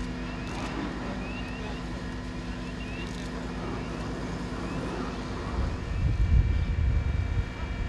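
Steady engine hum from a vehicle running, with wind buffeting the microphone from about six seconds in.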